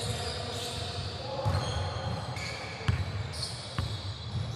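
Basketball game play on a hardwood gym court: sneakers squeaking as players run and cut, with footfalls and a few sharp knocks of the ball on the floor.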